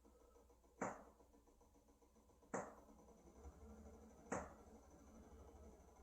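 Three sharp knocks, evenly spaced about every 1.8 seconds, each ringing out briefly, over a faint low hum.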